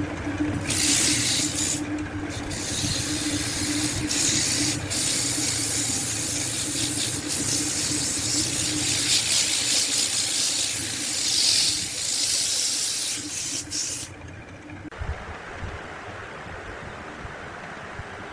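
A loud, steady hissing spray with a steady hum underneath, starting about a second in and cutting off about fourteen seconds in, leaving a quieter low hum.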